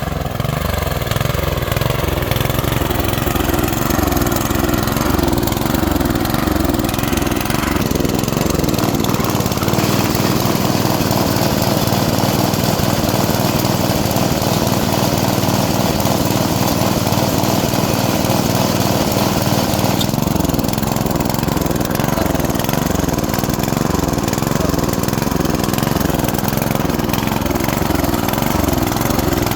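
Engine of a rice harvesting machine running steadily, its low rumble easing for a stretch in the middle.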